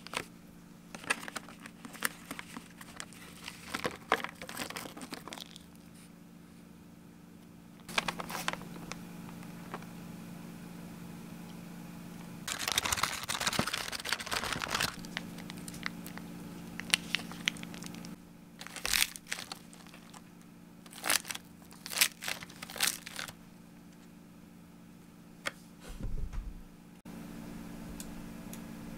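Clear plastic salad container crinkling and crackling as it is handled, in short spells with a longer stretch of crinkling around the middle. A faint steady low hum sits underneath.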